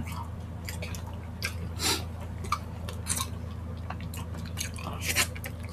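Close-up wet chewing and mouth smacks of people eating saucy spicy chicken feet by hand, with a few sharper smacks at irregular moments. A steady low hum runs underneath.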